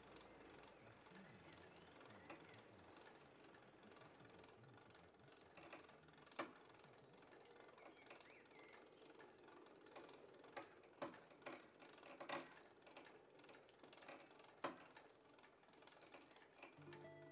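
Hand-pulled lift hoisting a loaded wheelbarrow of sand: faint mechanical clicking and knocking, with a few sharper clicks in the second half.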